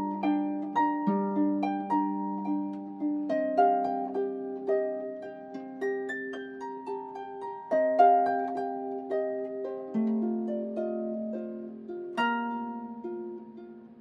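Instrumental background music of plucked string notes, each starting sharply and ringing away over a held low accompaniment, with no singing.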